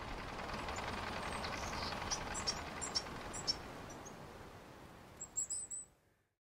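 Intro logo sound effect: a steady rushing noise that slowly fades, with short high chirps over it in two clusters, then cutting to silence about six seconds in.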